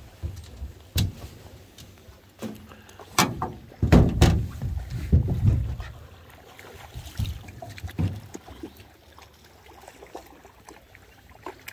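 Scattered knocks and thumps on an aluminium fishing boat's hull and deck, heaviest about four to five seconds in, while a hooked sockeye salmon is played to the boat.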